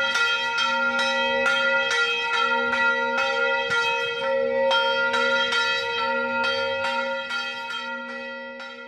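Church bells ringing, struck about twice a second with their tones hanging on between strikes, fading away near the end.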